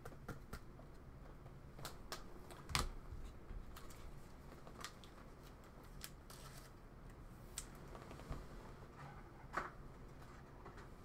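Faint, scattered light clicks and taps of small hard objects being handled, with a sharper knock just under three seconds in and another near the end.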